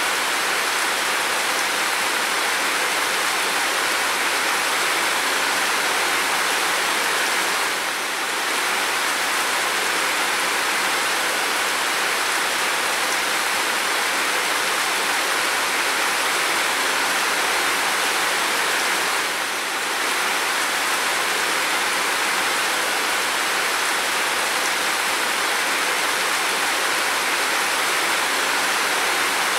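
Steady rain on a window and roof, an even hiss that dips briefly twice, about eight and twenty seconds in.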